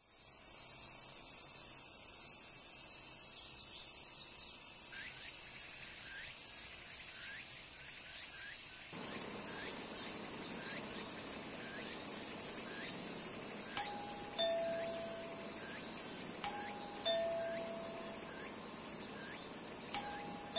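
A steady high chorus of summer insects, with a two-tone ding-dong doorbell rung three times, about 14 s, 16.5 s and 20 s in, each chime falling from the higher note to the lower one.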